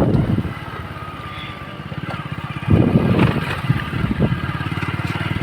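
Motorcycle engine running steadily while being ridden, heard from the pillion seat, with an even rapid pulsing that swells louder about two and a half seconds in.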